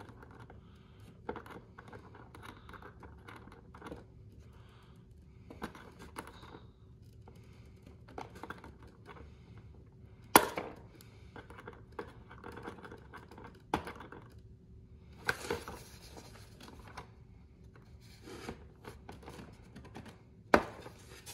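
Small handling noises of metal forceps and a steel pushrod working against a plastic servo arm and foam airframe: scattered light clicks, rustles and scrapes, with a sharp click about ten seconds in and another near the end.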